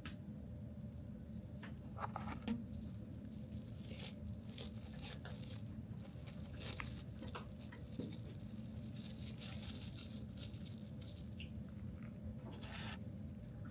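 Light rustling and scattered small clicks, as of things being handled close by, over a steady low hum; the loudest clicks come about two seconds in, and there is a longer rustle near the end.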